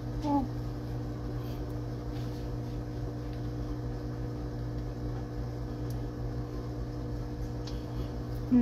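Steady low hum of household machinery running, with a short pitched vocal-like sound just after the start and a brief louder sound near the end.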